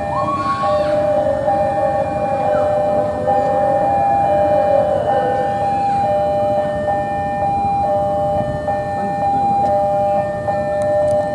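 Level crossing warning alarm sounding without a break, an electronic signal switching back and forth between two pitches, over the low rumble of a passing electric commuter train.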